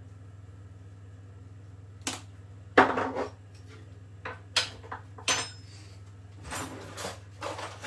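A series of sharp knocks and clinks as spice jars and their lids are handled and set down on the worktop. The loudest knock comes about three seconds in, and a steady low hum runs underneath.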